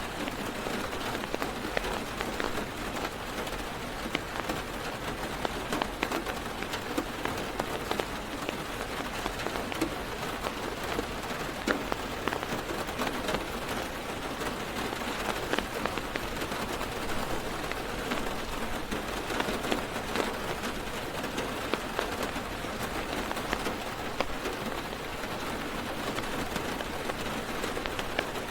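Heavy rain falling on a parked car's roof and windows, heard from inside the car: a steady hiss packed with small raindrop ticks.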